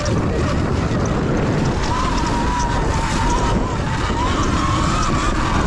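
Sur Ron electric dirt bike being ridden: heavy wind rumble on the microphone over the motor's thin whine, which wavers up and down in pitch as the speed changes.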